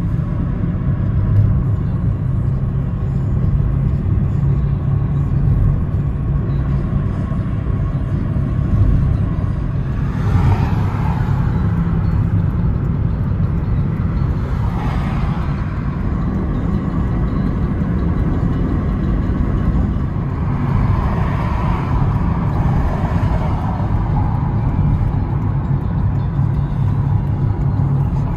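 Steady low road rumble of a car driving at speed, heard from inside the cabin, with a few brief swells of louder tyre and road noise about ten, fifteen and twenty-one seconds in.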